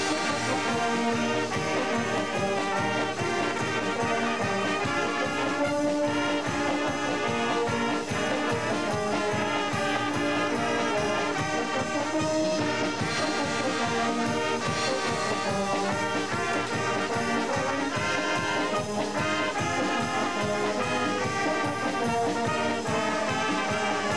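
Brass band playing a fast march: trumpets, trombones and tubas over a drum kit with cymbals.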